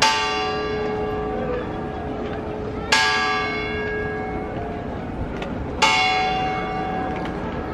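Large church bell close overhead, struck three times about three seconds apart, each stroke ringing on and slowly fading under the next.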